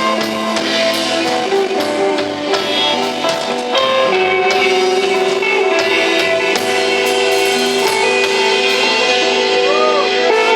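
Live instrumental rock band playing: electric guitar, bass and drum kit. The drum hits thin out after about four seconds, leaving held guitar and bass notes ringing.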